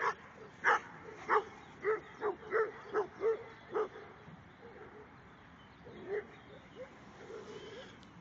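A Briard barking in play, about nine quick barks in the first four seconds, then a fainter one or two about six seconds in.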